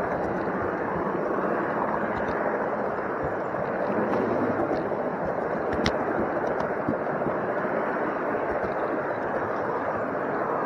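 Steady rolling rumble of a model train running on its track, heard close up from a camera riding on a flat wagon, with a few sharp clicks along the way. A murmur of voices may be mixed in underneath.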